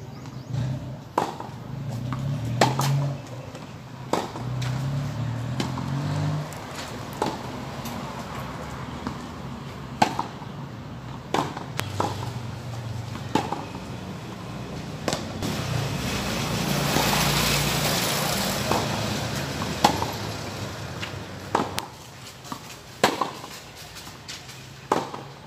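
Tennis balls struck by rackets and bouncing on a hard court during a baseline rally, a sharp pop every second or so. Under the hits is a low rumble that swells and fades about two-thirds of the way through.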